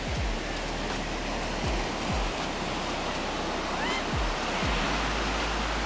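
Background music with a deep, recurring bass drop, over a steady rushing noise of ocean surf.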